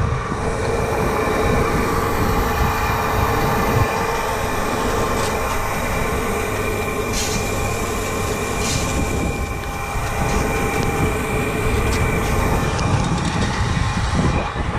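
Grain-handling machinery at a farm grain dryer running steadily as oats are loaded into a trailer: a loud, constant mechanical noise with a steady whine.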